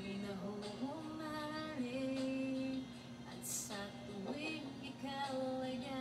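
A woman singing into a handheld Bluetooth karaoke microphone, holding long notes over a backing track.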